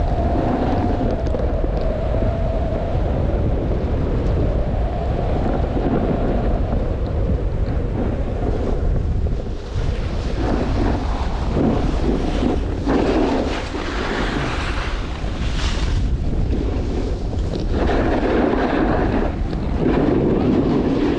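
Heavy wind buffeting the microphone during a fast descent on a snowy ski slope in a snowstorm. The rumble is steady; from about halfway in, irregular surges of hiss come and go.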